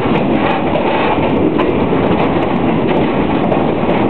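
Passenger coach rolling along the track, heard from inside the open-sided car: a steady, loud rumble and rattle of wheels on rails with scattered short clicks.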